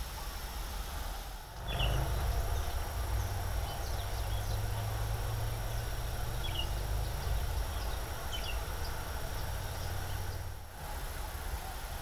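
Outdoor ambience with a steady hiss; a low rumble comes in about two seconds in and drops away near the end, and faint short high chirps sound now and then.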